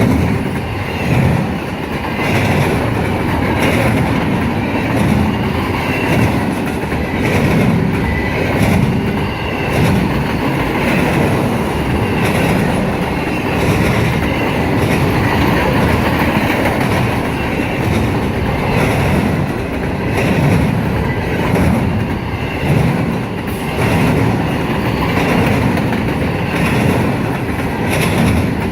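CSX freight train rolling past: a steady rumble of wheels on rail, with repeated clacks as the wheels cross the rail joints.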